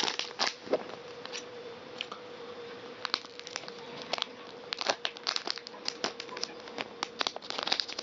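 Foil Pokémon card booster pack being crinkled and torn open by hand: scattered sharp crackles and rustles in clusters, busiest in the second half, over a faint steady hum.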